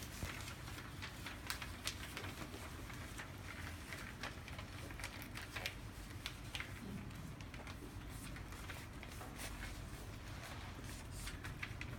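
A paper airplane being folded in half and creased: faint, scattered paper rustles and crinkles over a steady low background hum.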